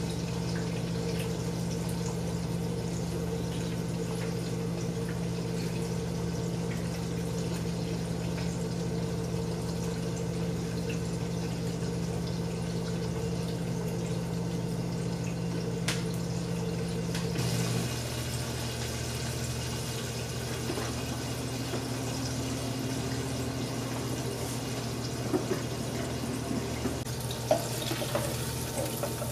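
Water trickling from a plastic bottle into an ice cube tray over a steady low hum. About 17 s in, the hum drops to a lower, different pitch, and a few small clicks come near the end.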